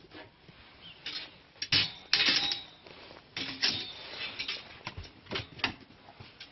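Steel dog transport cage rattling and clanking as its barred door is handled, in irregular sharp metallic knocks, with louder clusters about two and three and a half seconds in.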